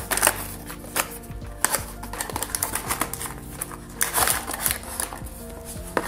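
Small cardboard blind box being torn open and handled: scattered clicks, scrapes and rustles of the card flaps and packaging, over background music.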